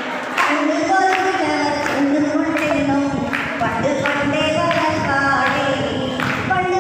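A woman singing a Malayalam song, with sharp beats at intervals keeping time.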